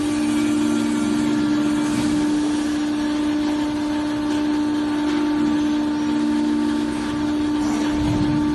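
Steady hum of a CNC punching machine's motor running, a low double drone held unchanged.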